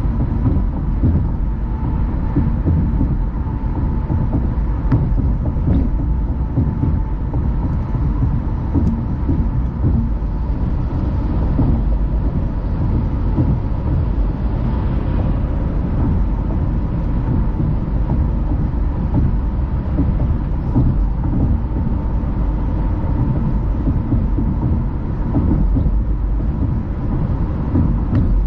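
A car driving at speed: a steady low rumble of road and engine noise, with a faint steady tone above it.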